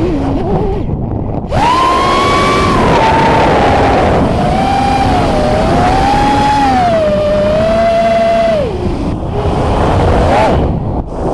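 FPV racing quadcopter's brushless motors and propellers whining, the pitch rising and falling with the throttle and dropping off briefly twice.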